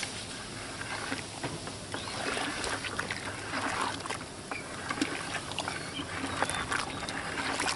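Liquid ore slurry in hydrochloric acid sloshing and swishing in a plastic bucket as it is stirred with a plastic paddle, with a few light clicks of the paddle against the bucket.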